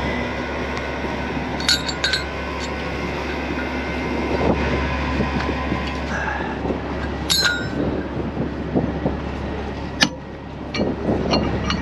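Steel recovery rigging clinking: chain hooks and shackles knocked against each other several times, the sharpest clink about ten seconds in. Under it runs the steady low hum of a heavy diesel truck engine idling.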